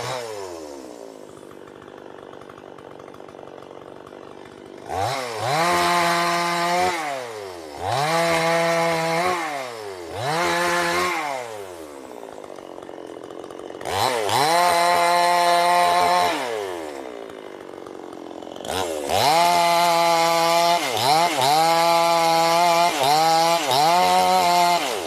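Chainsaw engine idling, then revved up to high speed and let back down several times, each burst lasting one to three seconds, with a longer run at high revs near the end.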